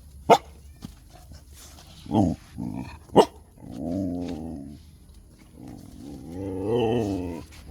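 Dogs play-growling at each other, with a couple of short sharp barks and two longer wavering growls.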